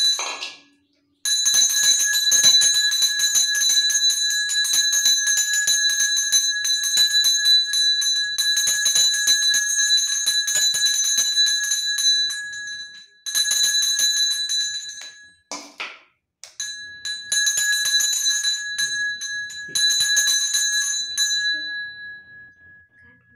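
Small hand bell rung fast and continuously during puja. It stops briefly twice and rings out near the end.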